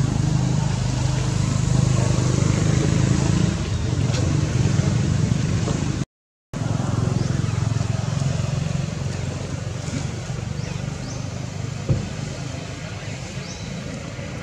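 A motor engine running steadily with a low rumble. The sound drops out completely for about half a second around six seconds in.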